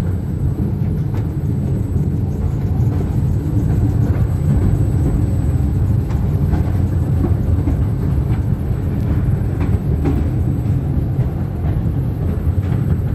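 Mail Rail narrow-gauge passenger train running through the tunnel, heard from aboard: a steady low rumble of wheels on rail, with faint scattered clicks.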